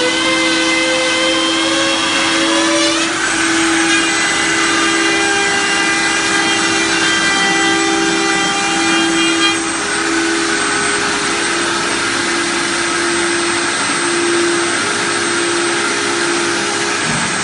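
CNC router spindle cutting a straight groove into a board panel: a steady high whine over a constant hum, the whine jumping up in pitch about three seconds in.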